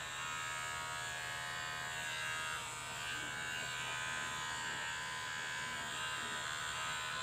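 Kemei KM-2600 electric hair clipper running steadily with its blade freshly oiled, a steady buzz that is somewhat rough rather than smooth like branded clippers.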